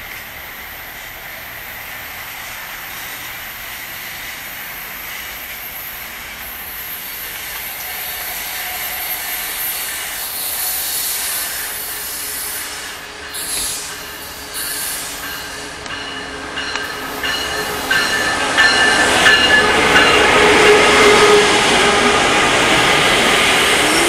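Amtrak Siemens SC-44 Charger diesel locomotive and its passenger cars pulling into a station, growing steadily louder as the train draws close and passes alongside. High-pitched squealing of the wheels comes in during the last several seconds as the train slows.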